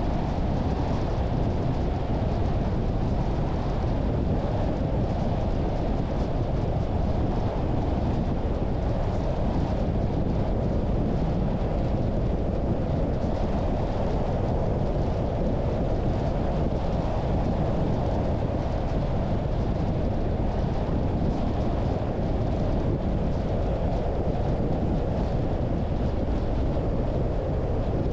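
A car driving at a steady pace: an even rumble of tyres on the road and engine hum, unchanging throughout.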